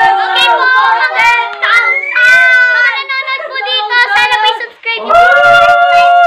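A group of voices, children among them, singing and cheering loudly together, with long held notes near the end.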